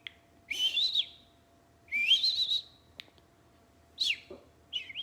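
Yorkshire terrier puppy whining in frustration: four high-pitched whines, each rising in pitch, with a short click about three seconds in.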